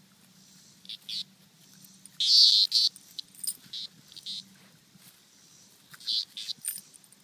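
A locust buzzing its wings in short, high bursts while a dog chases it in the grass: two brief buzzes about a second in, the loudest and longest burst at around two and a half seconds, a few more just after, and a last cluster near the end.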